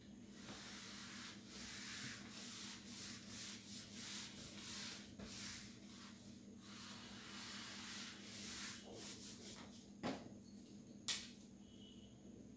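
A whiteboard being wiped clean with an eraser in repeated rubbing strokes. Then come two sharp clicks, and near the end the faint squeak of a marker starting to write on the board.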